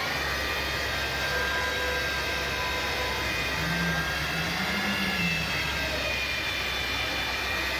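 Automatic transmission whining while the car is driven: several high, steady whine tones over engine and road noise, one of them bending up slightly about halfway through. A gearbox fault that the mechanic thinks calls for replacing the gearbox.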